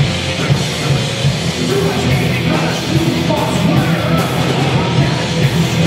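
Live band playing loud rock music on electric guitars, bass guitar and drums.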